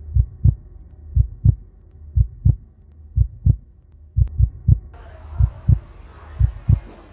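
Heartbeat sound effect: steady pairs of low thumps, about one pair a second, over a low hum. A faint room hiss comes in about five seconds in.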